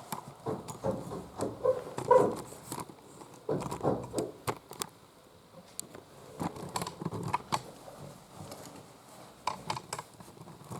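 Irregular clicks, clinks and short crunching scuffs of handling and footsteps on a floor strewn with broken glass.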